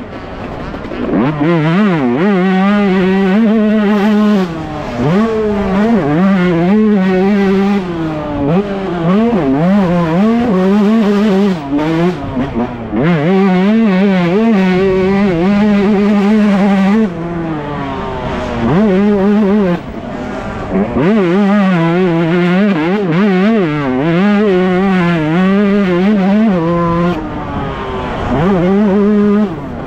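Yamaha YZ125 single-cylinder two-stroke motocross engine heard on board at racing speed, revving up and dropping again and again as the rider shifts gears and rolls on and off the throttle. In places it holds high revs for several seconds.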